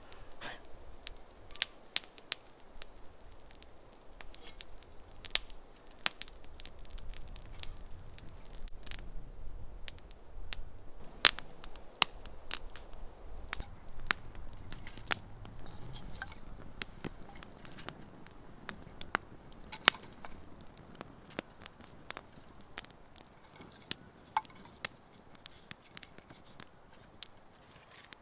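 Wood fire crackling, with many sharp, irregular pops, and the knock of split firewood being laid on the fire.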